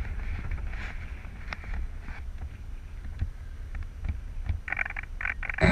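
Wind buffeting the microphone as a steady low rumble, with scattered light clicks and knocks.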